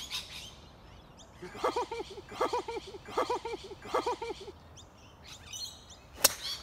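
A bird calling in a run of repeated harsh notes, in four quick clusters, with faint small-bird chirps behind. Near the end comes a single sharp crack as a golf driver strikes a ball off the tee.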